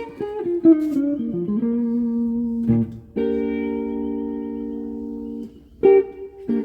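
Electric guitar played through an amplifier: a quick run of single notes, a held note, then a chord left ringing for a couple of seconds, and two short chord stabs near the end.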